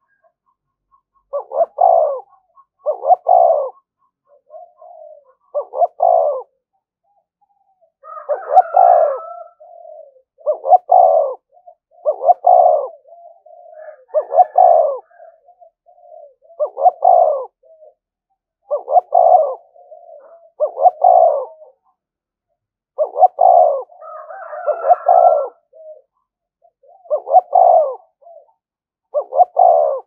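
Spotted dove cooing close up in a quick, continuous run of short coo phrases, each about a second long, with a couple of brief pauses. This is the insistent challenge cooing of a caged decoy dove, used to provoke and lure wild doves.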